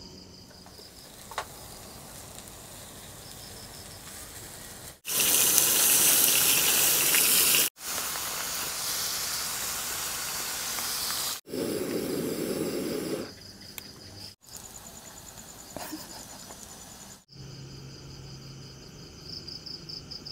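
Crickets trilling steadily, broken by stretches of beef patties and bacon sizzling on a hot grill pan. The sizzle starts and stops abruptly at each cut and is loudest about five seconds in.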